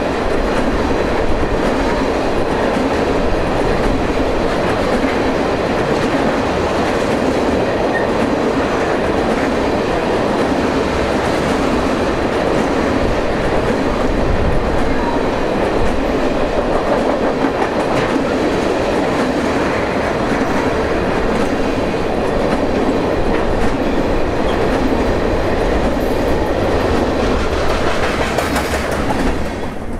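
Steel wheels of a long train of empty tank cars rolling past close by on the rails, a steady loud rolling noise. It drops off near the end as the last car, a covered hopper, goes by.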